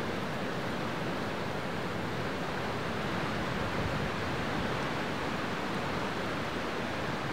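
Stream water rushing steadily over rocks, an even rush with no changes.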